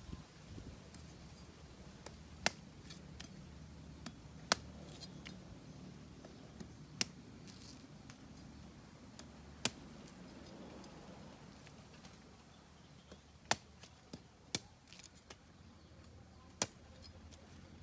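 Cleaver chopping into the husk of a green young coconut, trimming its top to open it. It makes sharp, separate strikes every two or three seconds, about seven loud ones with fainter taps between.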